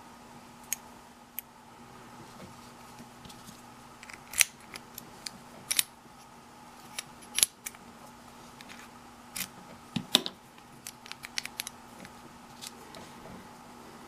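Sharp metallic clicks and taps from a Master stainless steel dimple padlock and its key being handled, the key going in and out of the keyway. The clicks come irregularly, in scattered clusters, with the loudest ones about halfway through and again about ten seconds in.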